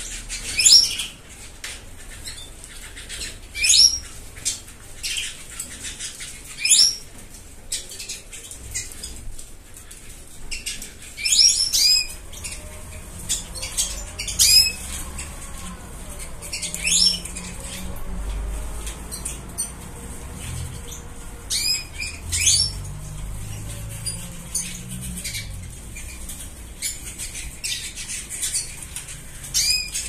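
Small cage finches calling with short, sharp, high chirps every few seconds, with wings fluttering as they move about.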